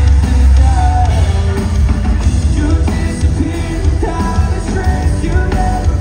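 Live rock band playing: a singer over electric guitars, bass and drums, loud and bass-heavy.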